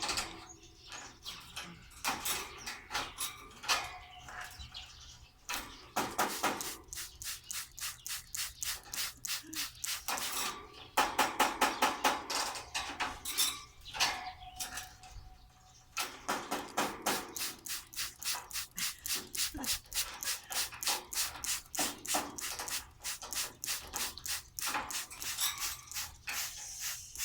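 A cockatoo's water bath: rapid, rhythmic splashing bursts, about three or four a second, in runs of several seconds broken by short pauses.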